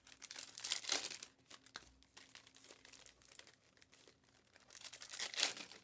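Foil trading-card pack wrappers crinkling and tearing as Topps Chrome packs are handled and opened, in several bursts of rustling with small clicks, the loudest just before the end.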